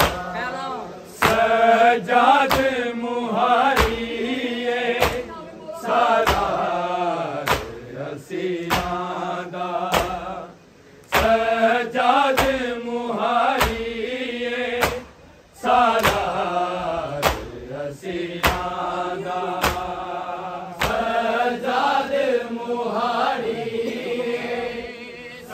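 Men's voices chanting a noha, a Shia mourning lament, in unison and in phrases with short breaks between lines. Sharp slaps keep time about once a second, the chest-beating of matam.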